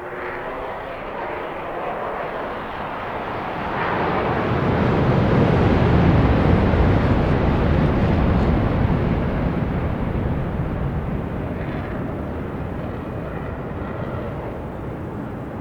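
Jet aircraft flying past: a noisy rush that builds to its loudest with a deep rumble about halfway through, then slowly fades away.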